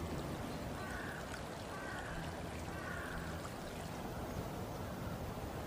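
Shallow river current over gravel: a steady rush of flowing water.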